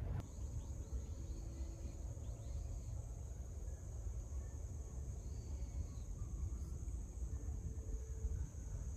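A steady, high-pitched chorus of crickets singing, over a low rumble of wind.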